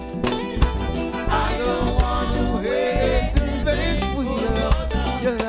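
Live reggae band playing, with a five-string electric bass and regular drum hits, and a voice singing over the band.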